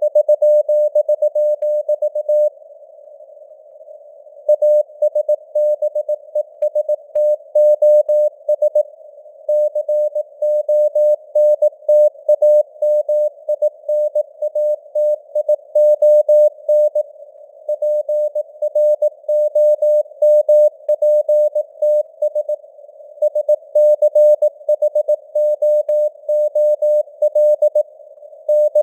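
Morse code (CW) sent at 18 words per minute: a steady mid-pitched beep keyed in dots and dashes over a narrow band of simulated radio hiss. The signal strength rises and falls from word to word (simulated fading, QSB), with a pause of about two seconds early on and shorter gaps between words.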